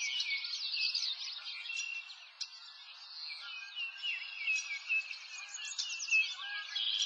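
A chorus of many birds chirping and singing at once: quick, overlapping high chirps and short falling whistles, thinning out briefly about two seconds in before filling back up.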